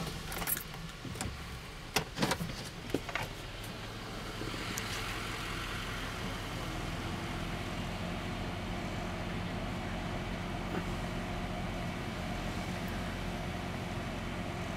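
Car running and pulling slowly forward on wet pavement, heard from inside the cabin: an engine hum under steady road noise from about four seconds in. A few knocks and clicks come before it in the first three seconds.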